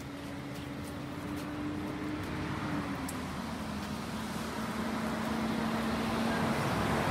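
Engine and road noise of an approaching motor vehicle, growing steadily louder, its engine note stepping down in pitch about three seconds in. Faint scuffs of a football being rolled under the sole on a dirt pitch in the first second or so.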